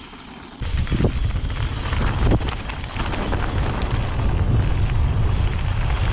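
Wind buffeting the microphone, with scattered clicks and knocks, cutting in suddenly about half a second in.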